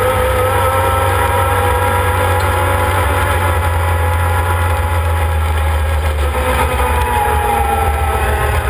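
Arctic Cat Wildcat 1000 side-by-side's 951 cc V-twin engine running under way at a steady speed, its whine easing down in pitch near the end, over a steady low rumble.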